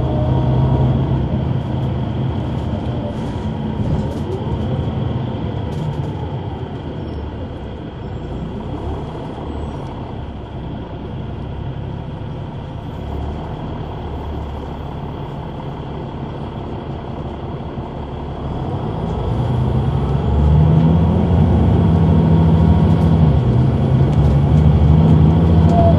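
Caterpillar C9 ACERT diesel engine of a 2004 Neoplan AN459 articulated bus, heard from the rear seats inside the bus. It runs at a lower, steadier level through the middle and grows clearly louder about three quarters of the way through.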